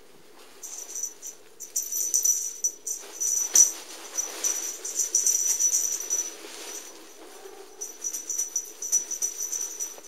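Rapid, irregular rustling and rattling of a cat toy as two cats bat and wrestle over it, loudest between about two and seven seconds in.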